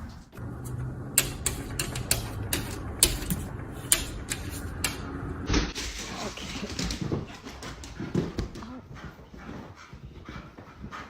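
A dog making small vocal sounds, with a run of sharp clicks or taps over the first half.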